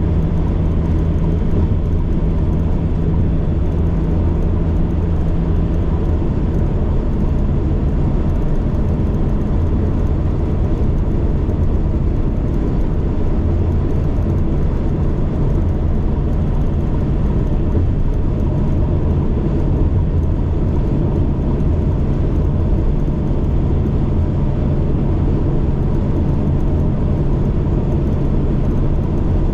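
Delivery van's engine running steadily while driving, with road noise; the engine note drops slightly about six seconds in.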